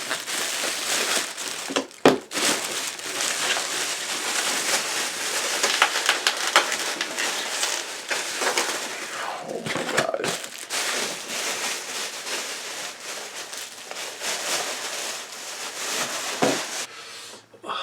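Takeout bag and food packaging being handled and unpacked: continuous crinkling and rustling with small crackles, pausing briefly a couple of times.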